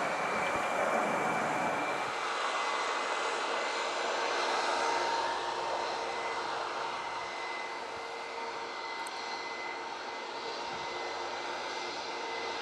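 Jet airliner's twin turbofan engines at climb power: a steady rush of noise with a whine. The deep low end falls away about two seconds in, leaving the higher rush and whine.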